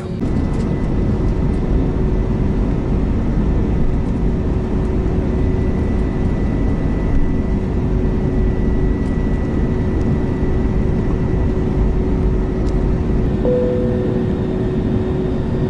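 Cabin noise of an Airbus A321neo taxiing: a steady low rumble from its Pratt & Whitney geared turbofan engines at taxi power, with a steady hum over it. A brief faint tone sounds near the end.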